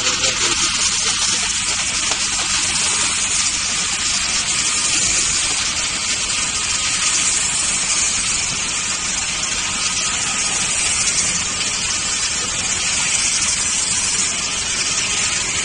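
Steady, loud rushing noise, even throughout with no distinct knocks or clicks.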